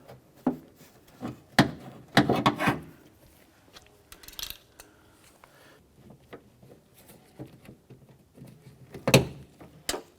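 Hard plastic and metal parts clicking, knocking and rattling as a clip on the door lock linkage is worked loose with pliers inside a car door. There is a cluster of knocks about two seconds in and one sharp knock near the end.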